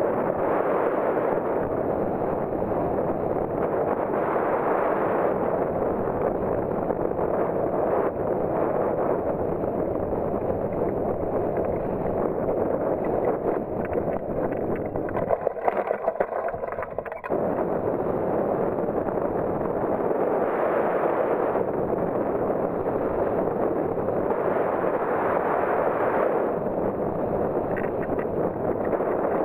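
Wind rushing over the microphone of a hang glider in flight, a steady noise that swells and eases every few seconds. About halfway through it thins briefly and a few knocks come through.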